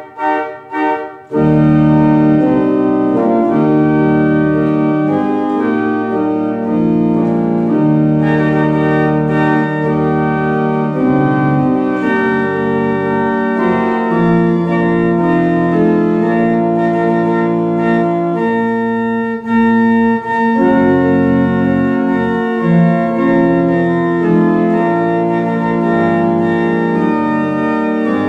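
Organ playing slow held chords over deep bass notes, after a few short detached chords in the opening second.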